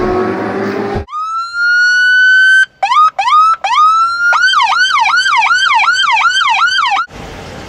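Police car electronic siren: one long rising wail, a few short chirps, then a fast yelp sweeping up and down about two and a half times a second, cutting off suddenly near the end. The tail of an intro music sting is heard in the first second.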